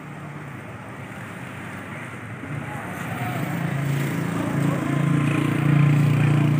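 Vehicle engine running over a steady hiss of road and wind noise, its low hum growing louder over the last few seconds.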